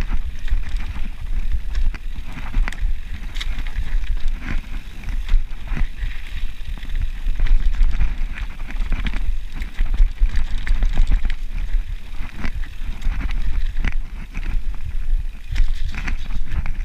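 Mountain bike ridden down a dirt singletrack trail: tyres rolling over the ground with frequent rattles and clicks from the bike over bumps, over a constant low rumble.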